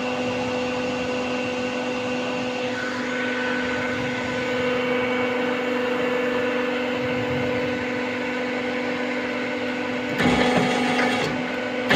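Transfer loading machine for moving rail cages running with a steady motor hum and whine, then clattering and clanking in irregular knocks from about ten seconds in.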